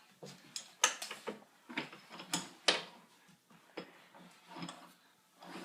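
Wooden toy train pieces and track clicking and knocking as they are handled, a string of irregular sharp clicks.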